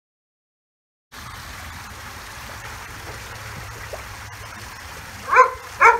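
Steady rush of water in a backyard swimming pool, with a low hum, starting about a second in after silence, as a dog swims. Near the end come two short, high-pitched cries about half a second apart, the loudest sounds here.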